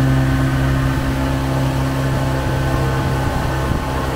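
Outboard motor of a small fiberglass launch running at a steady speed, heard from aboard the boat as a constant, even drone.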